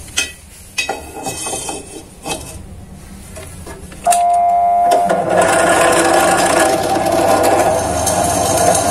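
Metal knocks and clicks as a square metal tube is set in a drill press vise, then about four seconds in the bench drill press switches on with a steady motor hum, and a second later the twist bit starts cutting into the tube, a loud grinding that runs on.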